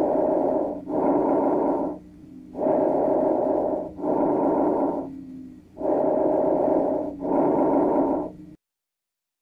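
Breath sounds heard through a stethoscope: three breaths, each a loud rushing inhalation followed almost at once by an exhalation of about the same length. The recording cuts off suddenly near the end.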